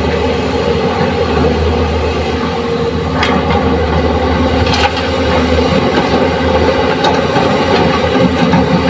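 JCB crawler excavator's diesel engine running under load as it digs and swings, with a few short knocks as soil is tipped from the bucket into the steel bed of a dump truck.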